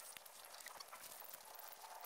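Near silence, with faint scattered clicks and rustles from clothing and leather gear being put on and adjusted.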